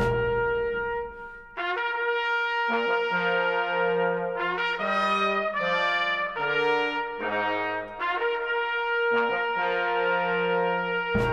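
Brass music, trumpets and trombones playing a melody of held notes that change every half second to a second, with a short break about a second and a half in.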